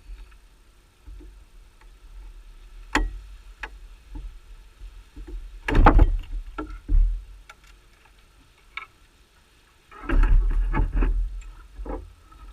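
Irregular knocks and clatter of things being handled, with a low rumble: a single sharp knock about three seconds in, a loud cluster around six seconds, and a longer run of knocks near the end.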